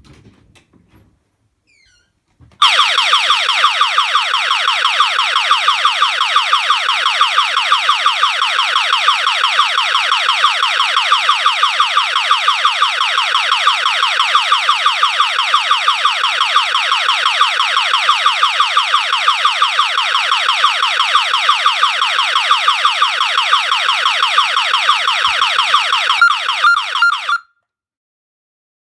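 Siren tone from an Accenta G4 intruder-alarm panel, driven through an extension loudspeaker: a loud electronic siren repeating a fast sweep over and over. It starts suddenly a few seconds in, holds steady, stutters briefly near the end and cuts off abruptly.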